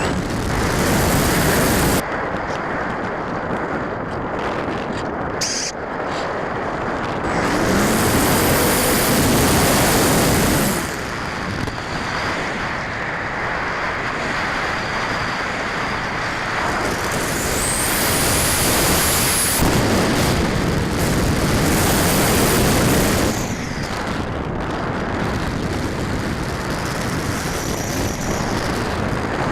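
Heavy wind rush buffeting the microphone, surging louder several times, with the faint whine of the Radian Pro's electric motor rising and falling now and then.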